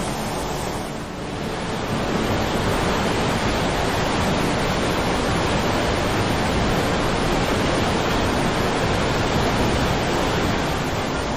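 Muddy Yellow River floodwater pouring over the rock ledges of Hukou Waterfall: a loud, steady rush of falling and churning water. It dips briefly about a second in, then holds a little louder.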